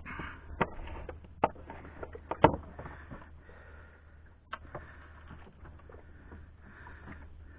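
A few sharp knocks and clicks from fishing gear being handled on a small boat while a baited line is lowered over the side. The loudest knock comes about two and a half seconds in. A low steady rumble runs underneath.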